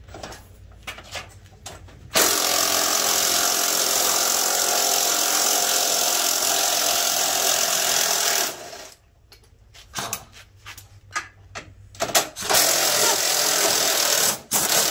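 Pneumatic wrench running on bolts under the front of a car: one long burst of about six seconds, then a shorter one near the end, with clinks of metal tools in between.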